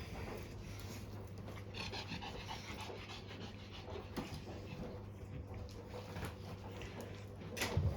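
A dog panting, with a brief sharp knock near the end.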